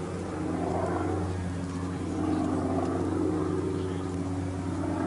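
Aircraft engine noise as a plane flies past overhead: a steady rushing drone over a low hum, swelling slightly about two seconds in.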